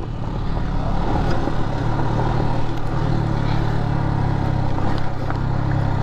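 Motorcycle engine running steadily while the bike is ridden, a continuous drone at an even pitch and level.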